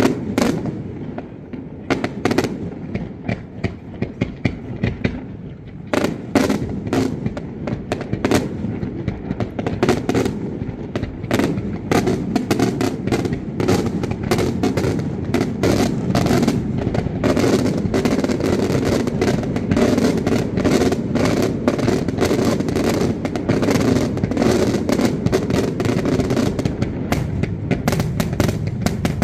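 Daylight fireworks: aerial shells bursting with sharp bangs. There are a few scattered reports at first, then from about six seconds in a rapid, near-continuous barrage of bangs and crackles.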